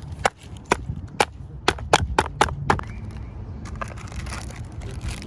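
A quick run of about eight sharp clicks or cracks, a few a second, dying away after about three seconds into a faint rustle, over a low rumble.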